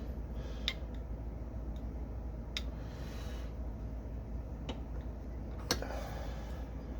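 Light metal clicks and taps from the parts of a click-type torque wrench's handle being worked apart by hand, four of them a second or two apart, the loudest near the end, over a steady low hum.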